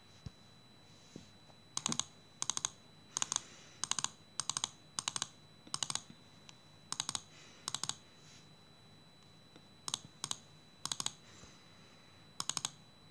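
Fingertips tapping a phone's touchscreen in quick double-taps: about a dozen short clusters of sharp clicks, coming every half second to a second, with a couple of longer pauses.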